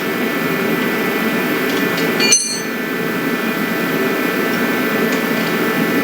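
A steady background hum, with one sharp metallic clink of a tool on metal about two seconds in that rings briefly.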